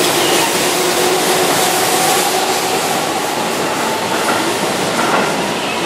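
Keihan electric train, set 2632, running past a station platform: steady wheel-on-rail noise with held motor tones, easing slightly as the last car clears.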